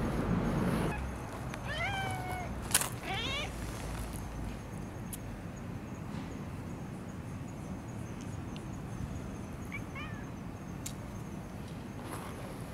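Tabby cats meowing up close. A falling meow comes about two seconds in, then right away a short trilling call, and a brief chirp near the ten-second mark. A rustle is heard at the very start.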